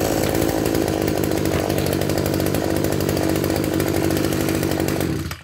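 Maruyama GKB2610E brush cutter's 26cc two-stroke engine running steadily, just pull-started, then cutting out shortly before the end.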